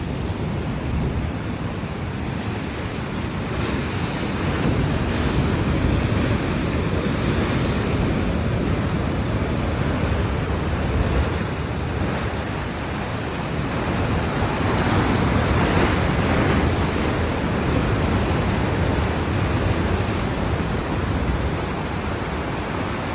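Steady rush of sea surf and wind, with wind buffeting the microphone; it swells and eases in slow waves.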